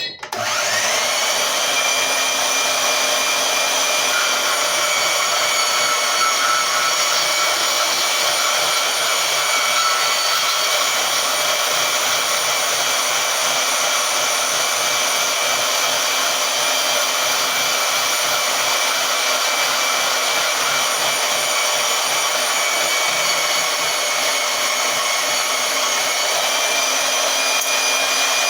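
Harbor Freight portable band saw spinning up and running steadily with a whine as its blade cuts through 16-gauge metal channel at a slowed speed setting, then winding down near the end.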